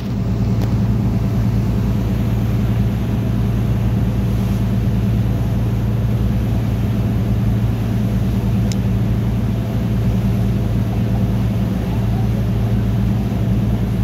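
A boat's engine running steadily, heard from on board: a deep, even drone with a wash of noise over it.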